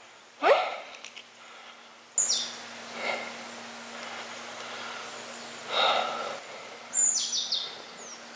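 Wild birds calling: sharp high chirps that slide down in pitch, with a quick run of them about seven seconds in and a couple of lower, fuller calls in between. About half a second in there is a short, loud rising whoop, the loudest sound.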